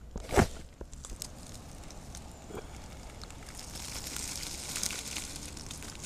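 Shallow river water lapping and trickling over pebbles right at the microphone, a steady crackling wash, with a single knock about half a second in.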